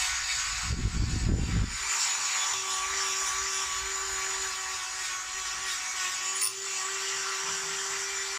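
High-speed hand-held rotary tool with a small bit scrubbing rust off the metal loop lever of a Martini-Henry rifle held in a vise: a steady whine with grinding, heavier and lower about a second in.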